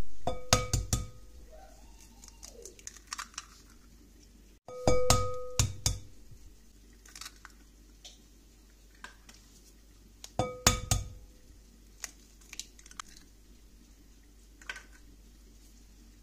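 Eggs cracked one at a time on the rim of a glass mixing bowl, three times: each crack is a quick cluster of sharp taps with a brief ringing of the glass. Softer ticks and drips follow as the shells are opened and the eggs drop in.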